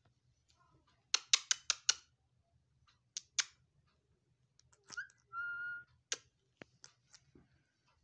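Rose-ringed parakeet giving a quick run of about six sharp screeches, then two more, then one steady, single-pitch whistle lasting under a second, followed by a few short sharp clicks.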